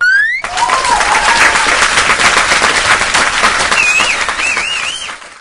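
A short rising whistle, then a crowd clapping and cheering, with wavering whistles near the end. The applause starts suddenly and stops just before the end.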